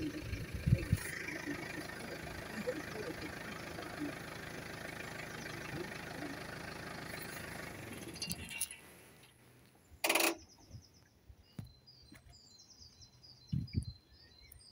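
A waiting road vehicle's engine idling steadily, which stops about eight and a half seconds in. A brief loud rustling burst follows, then small birds chirping in short repeated calls.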